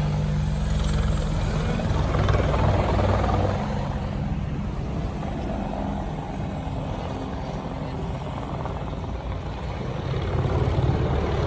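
Helicopter sound: a steady rotor chop over an engine drone. It is louder for the first few seconds, eases a little, and swells again near the end.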